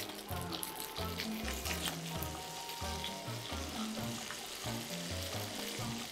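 Chicken wings and garlic frying in oil in a pan, a steady sizzle.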